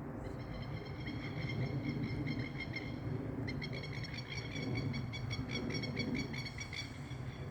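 Distant aeroplane drone overhead, a steady low rumble, with a high, rapidly pulsing chirring over it that becomes denser about halfway through.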